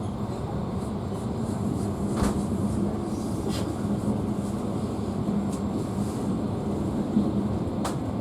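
Long-distance passenger train under way: steady rumble of the carriage and its wheels on the rails, with a few sharp clicks.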